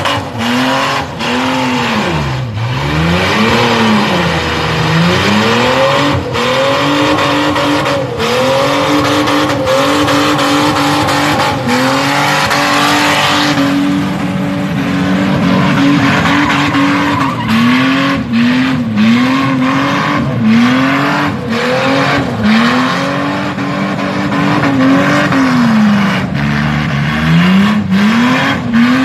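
Car doing a burnout: the engine is revved hard, its pitch swooping up and down about once a second as the throttle is worked. Under it the spinning rear tyres screech against the pad, loudest about halfway through.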